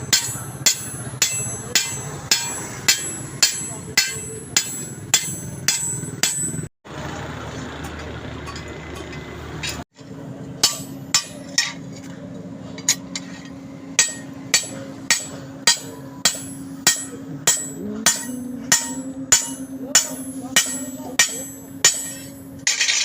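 Hand hammer striking hot steel on an anvil in a steady rhythm, about two to three blows a second, each with a bright metallic ring. The hammering breaks off for about three seconds with a steady hiss, then resumes over a steady low hum.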